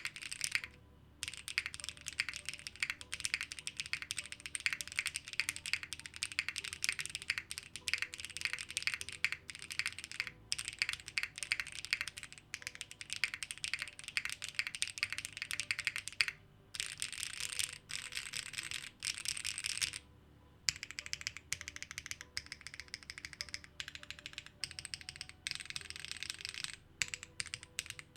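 Rapid typing on a Dune65 custom mechanical keyboard with Kailh BCP switches, DCS keycaps and an ABS plate: a dense run of glassy, clacking keystrokes, broken by a few brief pauses.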